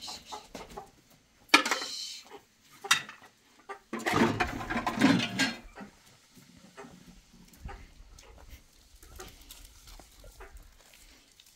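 Chickens clucking and calling, with a sharp loud call about one and a half seconds in and a longer, louder one from about four to five and a half seconds in.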